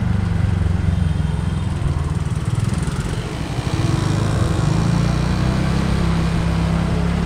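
Small two-wheeler engine running under way at low speed, with a low rumble on the microphone; the engine note eases briefly about three seconds in, then picks up again.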